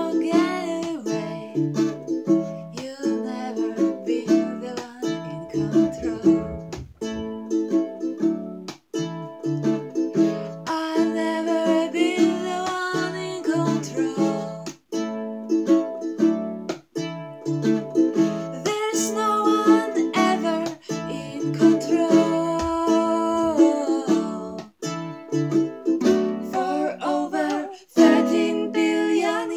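Two women singing a folk song together over a strummed twelve-string acoustic guitar and a small black acoustic guitar, with short breaks between phrases.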